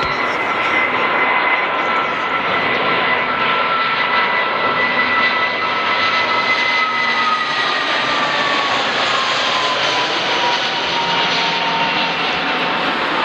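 Twin-jet Airbus A320-family airliner on final approach, passing low and close. Its engines make a steady whine over a loud rushing roar, and the whine slides down in pitch about halfway through as the aircraft goes past.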